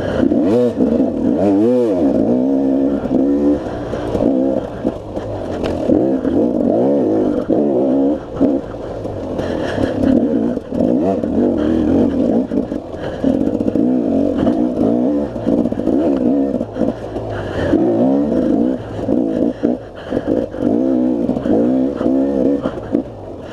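KTM two-stroke enduro motorcycle engine heard from on board, revving up and down constantly as the throttle is opened and shut, with occasional clatter.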